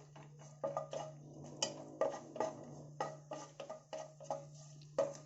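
Metal kitchen utensils clinking against a metal pan, a dozen or so irregular clinks that each ring briefly, over a low steady hum.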